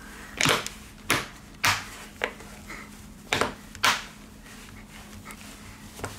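Hands handling a smartphone on a hard work surface: about six sharp taps and knocks of the phone's plastic body against the table and fingers in the first four seconds, then a couple of faint ones near the end, over a low steady hum.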